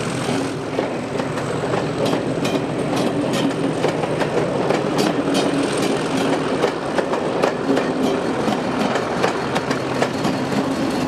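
Passenger coaches rolling past close by, their wheels clicking quickly over rail joints, with a steady diesel drone underneath. The drone comes from the trailing Class 50 locomotive, which draws level near the end.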